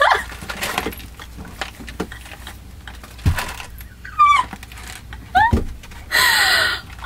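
A woman laughing hard: breathy, quiet stretches broken by short high squeals that bend up and down in pitch, and a longer, louder cry of laughter near the end.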